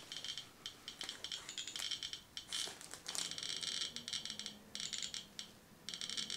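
RadiaCode 103 scintillation detector clicking for each radiation count, held against a thorium gas mantle. The clicks are sparse at first and run together into a rapid crackle from about three seconds in as the count rate climbs.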